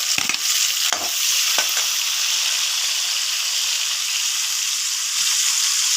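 Chopped onions sizzling in hot oil in a kadai, a steady loud hiss, with a few sharp clicks in the first two seconds as they are stirred.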